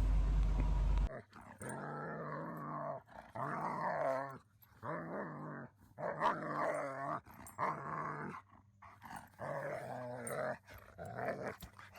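Steady vehicle noise cuts off about a second in. A German Shepherd then vocalizes in a run of about seven drawn-out, growly moans, each about a second long and bending up and down in pitch.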